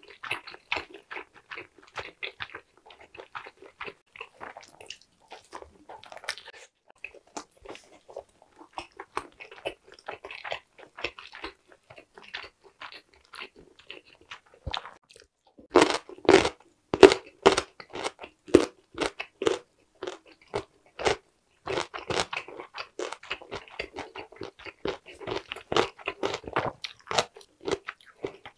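Close-miked mouth sounds of eating: soft, wet chewing of Korean blood sausage (sundae), then, about halfway through, loud crisp crunches of bites into chonggak (ponytail radish) kimchi, about one or two a second, followed by crunchy chewing.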